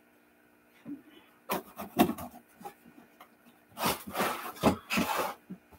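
A white cardboard box being handled and slid across a plastic table: a few short scrapes and knocks, then a longer stretch of rubbing and scraping about four seconds in.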